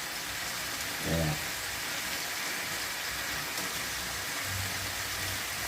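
Chicken thighs frying in a pan, a steady sizzle as the first side browns.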